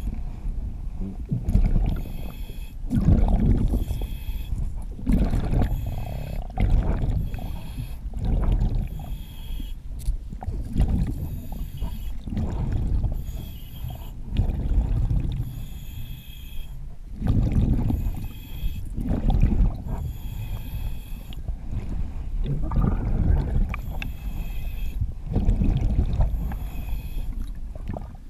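Diver breathing underwater through a regulator. Each breath is a hissing inhalation followed by a rumbling, bubbling exhalation, in quick regular breaths about every two seconds.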